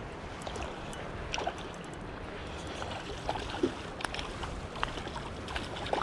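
Steady rush of creek water with a few short, sharp splashes and clicks, the loudest about halfway through and near the end, as a hooked trout is played on a spinning rod and reel.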